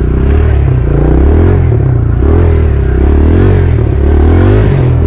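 Dirt bike engine running under load, revving up and dropping back again and again, about once a second, as the throttle is worked.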